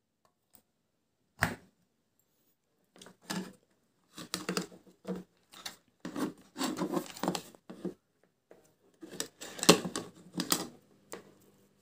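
Irregular clicks, knocks and scrapes of hard plastic as a portable speaker's amplifier panel is handled and fitted back into its plastic cabinet. There is one sharp click about a second and a half in, and the handling noise comes in clusters through the rest.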